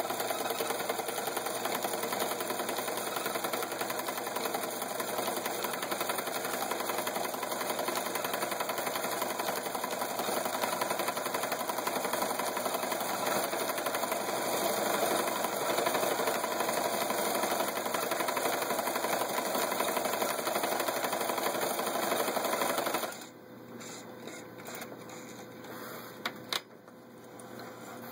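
Necchi Supernova Ultra sewing machine running steadily, stitching a decorative pattern set on its pattern dial, then stopping about 23 s in. A few light clicks and rustles follow as the fabric is pulled out from under the foot.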